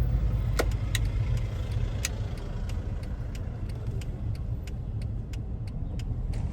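Car driving, heard from inside: a steady low rumble of engine and road noise, with light ticks about three times a second.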